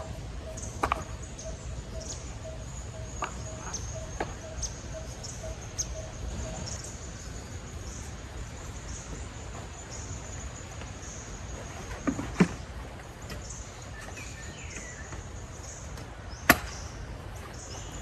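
Occasional sharp knocks and clatter of camp gear being handled at a folding table, the two loudest about twelve and sixteen seconds in, over a steady faint high buzz of outdoor ambience.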